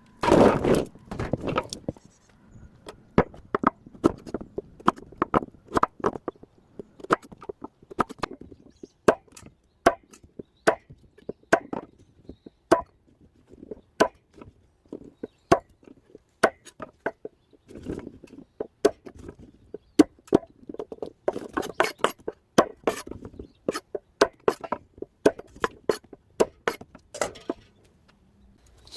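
Knife chopping on a cutting board: irregular sharp knocks, coming in quick runs at times.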